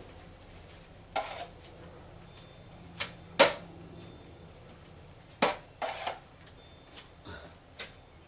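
Metal drywall knife scraping and clicking against a plastic mud pan and the ceiling patch while setting compound (quickset) is worked on: a string of short, sharp scrapes and clacks at irregular intervals.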